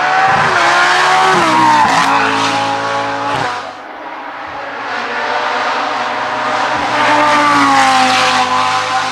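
GT race car engine at high revs, accelerating hard uphill past the listener. The pitch climbs, breaks sharply at an upshift about two seconds in and dips near four seconds, then builds again and falls away near the end as the car goes by.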